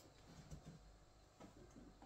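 Near silence, with a few faint taps and soft knocks of ceramic wall tiles being set in place, one slightly louder knock about half a second in.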